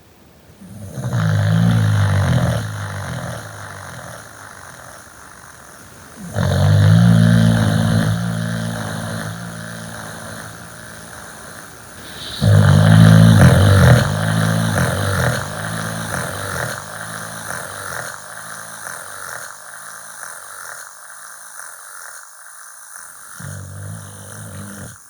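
Loud snoring in three long bouts, each starting loud and fading over several seconds, with a low pitched rumble that pulses, and a shorter, fainter snore near the end.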